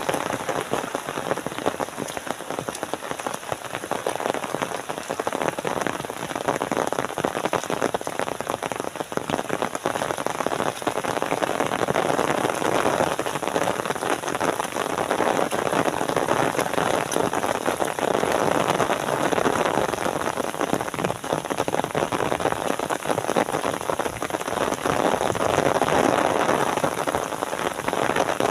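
Heavy rain falling steadily, a dense hiss of countless drops striking surfaces.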